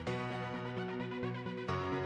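Electronic background music, with a change of chord near the end.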